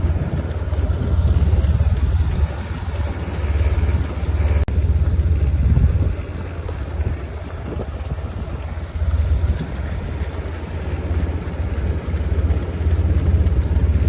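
Low rumbling wind buffeting the microphone over a vehicle running, rising and falling unevenly.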